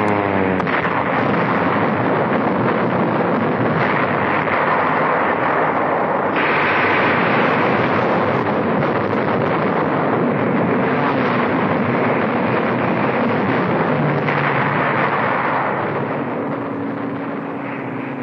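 Air-raid battle noise: a dense, steady din of aircraft engines and explosions. It begins with a falling whine and eases off over the last couple of seconds.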